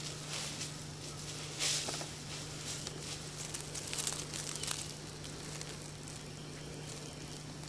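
Scattered soft rustling and crackling, a few short bursts several seconds apart, over a steady low hum.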